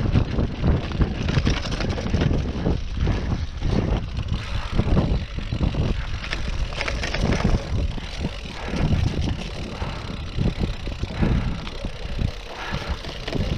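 Cyclocross bike ridden over a dirt trail strewn with fallen leaves: steady tyre noise with frequent short knocks and rattles from the bike over bumps, and wind rushing over the action camera's microphone.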